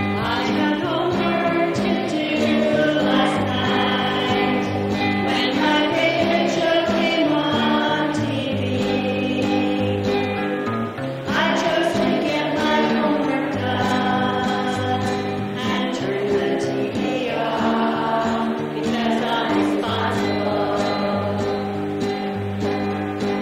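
A group of voices, children's among them, singing a song together to a strummed acoustic guitar.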